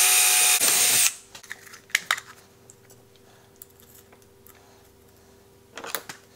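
DeWalt cordless drill running with a high whine for about a second, then light clicks and taps of small parts being handled.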